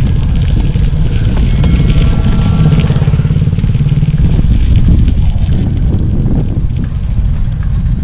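Wind rumbling on the camera microphone while a mountain bike rolls along a dirt road, with tyre noise from the road surface.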